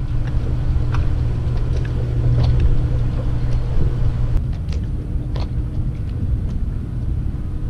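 Steady low hum with light taps and clicks over it; the hum stops about halfway through.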